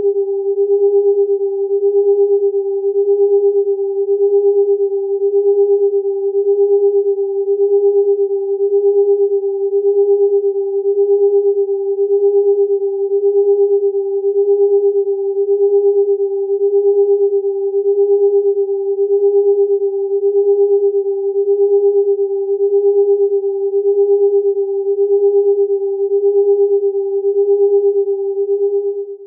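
Electronic sine-wave tones close in pitch beating against each other: a strong low steady tone with a fainter one near twice its pitch. The loudness swells and fades about once a second, with a faster flutter inside each swell, and the sound cuts off suddenly at the very end.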